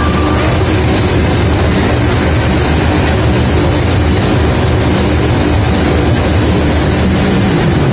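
Motorcycles running inside a steel-mesh globe of death, their engines loud and continuous as the riders circle, the pitch dipping near the end.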